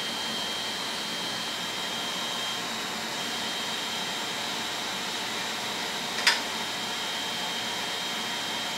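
Anycubic Mega-S 3D printer loading filament: the extruder stepper motor whines at a steady high pitch as it feeds, over a steady hiss. The whine drops out briefly about three seconds in, and there is one short click about six seconds in.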